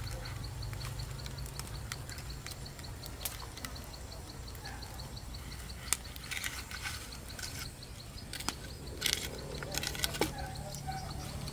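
Small open wood-and-bamboo fire crackling with a few sharp snaps, and the knock of a bamboo stick being pushed into it near the end, over a steady low wind rumble on the microphone and a faint high ticking about four times a second.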